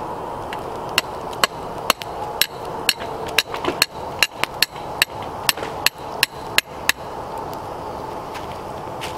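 An axe striking wood: a quick series of about sixteen sharp blows, two to three a second, starting about a second in and stopping after about six seconds.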